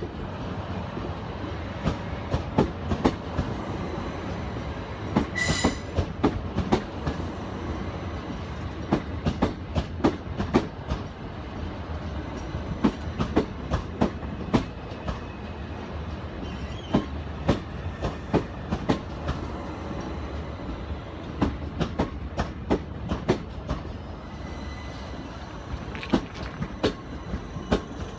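Southern Class 377 Electrostar electric multiple unit pulling into the platform, its wheels clicking over the rail joints in an uneven run of clicks over a steady rumble. A brief high squeal about five seconds in.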